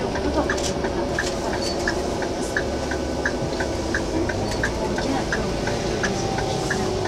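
Tour coach cabin noise on the move: steady engine and road rumble with a low hum, and a regular light ticking about three times a second.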